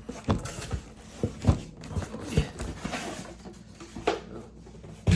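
A cardboard box being handled and opened by hand: irregular knocks and thuds with rustling of cardboard and packing.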